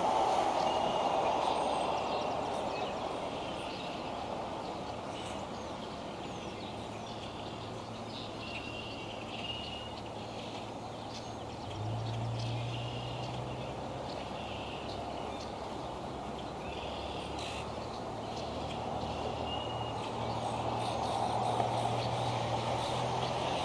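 A steady rushing background noise that eases off and then builds again near the end, with short high bird chirps scattered through it. A low steady hum comes in partway and grows louder about halfway through.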